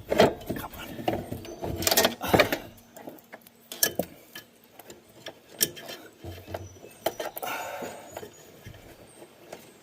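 Irregular clicks and knocks of metal parts being handled as a cable end is worked back into its mount on a riding mower, thickest in the first couple of seconds and sparser after.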